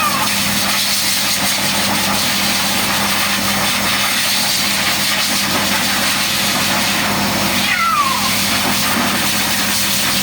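A cat meows once, a single falling cry about eight seconds in, over the steady hiss and hum of a running motor.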